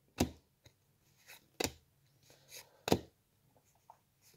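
Pokémon trading cards being flipped through by hand: three sharp card snaps about 1.3 s apart, with fainter card rustles between.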